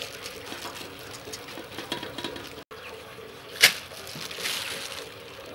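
Plastic-gloved hands working soaked sticky rice in an aluminium basin: a steady wet crackle and rustle of grains, broken off briefly a little past halfway, followed by one sharp knock.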